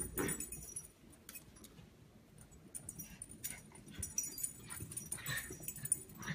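A small dog whimpering in short bursts while play-wrestling with a cat, with scuffling and small clicks on the rug.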